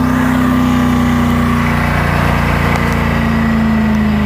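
1998 Land Rover Discovery engine held at high revs in a burnout on hard dirt, the wheels spinning. The engine note is steady and sags a little near the end.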